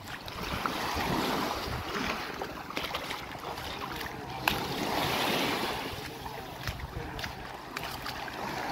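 Surf washing in on a beach in slow swells a few seconds apart, with wind buffeting the microphone and scattered sharp clicks, one louder about four and a half seconds in.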